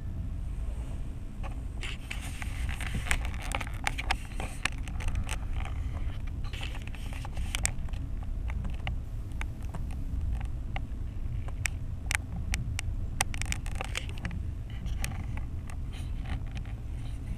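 Steady low rumble of a moving vehicle with wind on the microphone. Over it come many irregular sharp clicks and crackles, thickest from about two seconds in.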